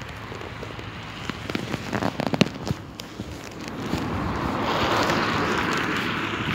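Crunching steps in snow and clicks of handling in the first few seconds, then from about four seconds a hiss that swells and holds steady.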